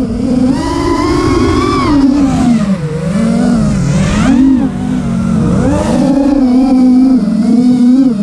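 FPV quadcopter's brushless motors whining as heard from its onboard camera, the pitch rising and falling smoothly with throttle changes.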